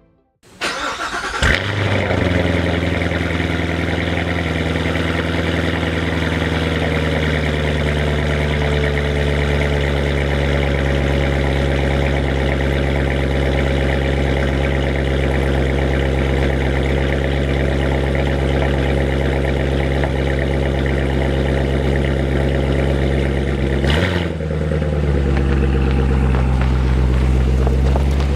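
2017 Chevrolet Corvette Z06's supercharged 6.2-litre V8 starting up and catching, then running at a steady high idle that slowly settles lower. Near the end there is a short sharp sound and a dip in the engine note, after which it idles on a little lower.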